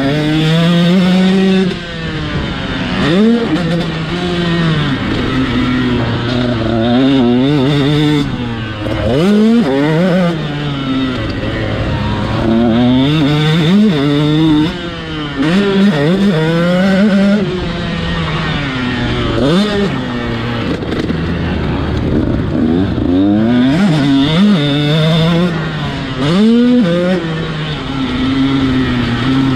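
KTM SX 125 two-stroke single-cylinder motocross engine under hard riding. The revs climb and fall back over and over as the bike is ridden through the gears.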